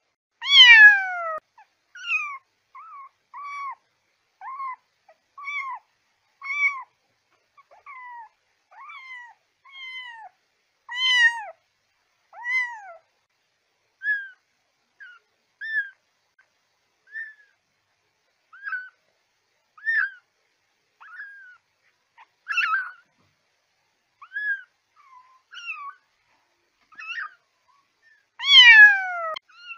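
Kitten mewing over and over: short, high calls that mostly fall in pitch, about one a second. A few are loud, near the start, about eleven seconds in and near the end, and many are faint. It is a kitten's call of the kind that draws female cats to it.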